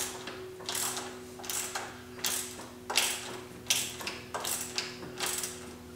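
Quarter-inch-drive ratchet with an extension and half-inch socket clicking through its back-swings, about one every 0.7 seconds, as a nut is run off a bolt.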